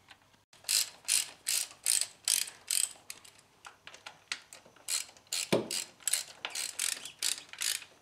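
Hand socket ratchets clicking in repeated short runs as the cam cover bolts are loosened one after another, with a single duller knock about five and a half seconds in.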